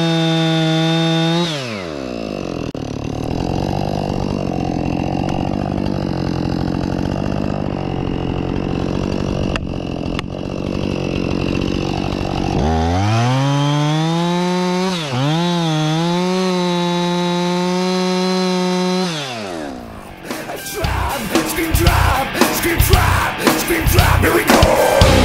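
Husqvarna 576XP two-stroke chainsaw at full throttle, dropping to a steady idle about a second and a half in. After about ten seconds of idling it revs back up to full throttle, dips briefly twice, holds, then falls off. Loud heavy-rock music takes over for the last few seconds.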